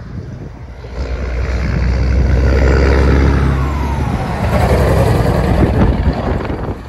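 Semi truck's diesel engine working hard as the rig drives close past, black smoke puffing from its stacks. The engine's steady low note builds to its loudest, drops in pitch as the tractor goes by, and the trailer's wheels rumble past before the sound fades.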